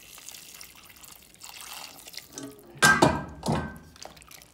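Hot water being poured into a cooking pot of soaking chiles, splashing and pouring. About three seconds in, a sudden louder splash and clatter.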